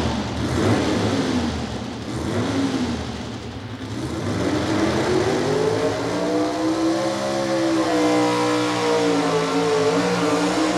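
Super stock four-wheel-drive pulling truck's engine at full throttle. About four seconds in, its pitch climbs over a couple of seconds, then holds high and wavers slowly, as on a run down the pulling track.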